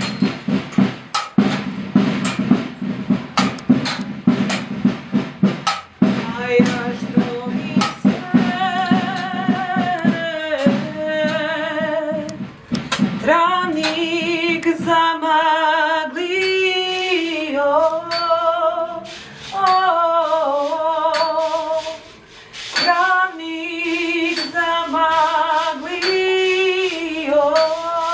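Fast, dense drumming over a low hum. From about eight seconds in, a single voice sings a slow, ornamented melody with wide vibrato, while the drumming thins to occasional strokes.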